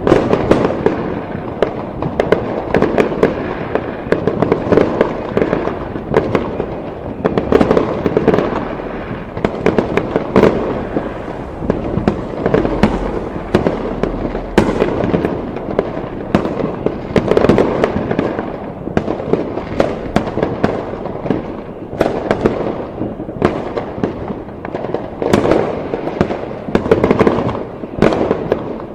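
A fireworks display: a continuous barrage of bangs and crackling pops, many overlapping every second, over a steady rumble of explosions.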